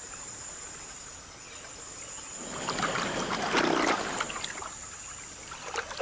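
Water splashing and sloshing for about two seconds, starting a little over two seconds in, over a steady high-pitched insect drone.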